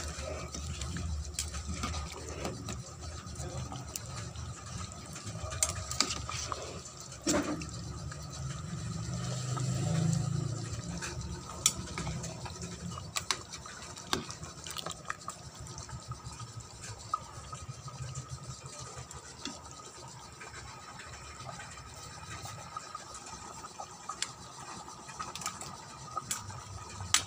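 Chicken curry in coconut milk simmering in a stainless steel pot, bubbling with scattered small pops, over a low steady hum.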